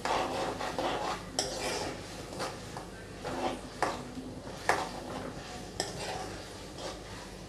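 Metal ladle stirring a thin, watery sauce in a steel kadai, scraping and swishing round the pan with about four sharp clinks against the metal, the loudest a little past halfway.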